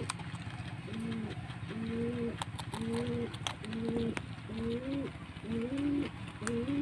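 Pigeons cooing over and over, the coos overlapping and stepping between a lower and a higher note, with a few faint clicks.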